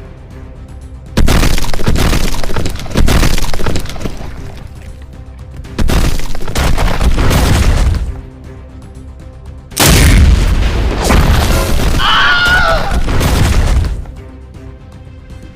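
Cartoon battle sound effects over background music: loud booms about a second in, near three seconds, near six seconds and near ten seconds, each dying away over a second or more. A wavering high squeal sounds during the last one.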